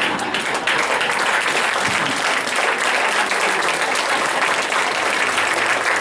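Audience applauding, a steady dense clapping that starts as the skit's last line ends.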